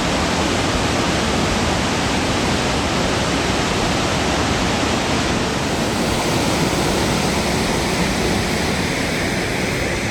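Burney Falls, a 129-foot spring-fed waterfall, pouring down in a steady, dense rush of falling water.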